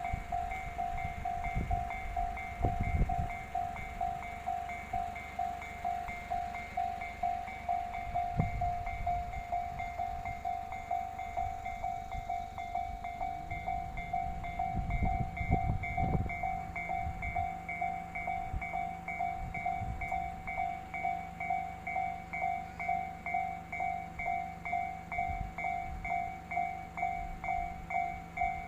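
Japanese railway level-crossing alarm ringing steadily, its electronic 'kan-kan' tone a little under two strokes a second. A train passes with low rumbles and thumps, and a steady low hum comes in from about halfway.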